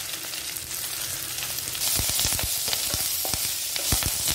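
Drumstick leaves sizzling in ghee in a stainless steel pan. The sizzle grows louder about two seconds in, when a spatula starts stirring and knocking against the pan.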